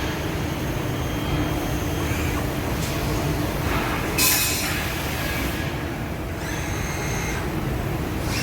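Transfluid EDB 642 CNC tube bender running: a steady machine hum with a faint whine, and a burst of hiss about four seconds in that lasts about a second.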